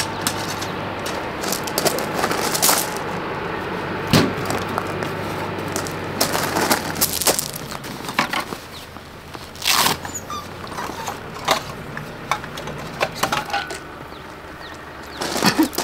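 Camping gear handled at an aluminium storage box: a run of separate sharp knocks, clinks and clatters as a lid is opened and items are moved about. A low steady hum sits under the first half and stops about seven seconds in.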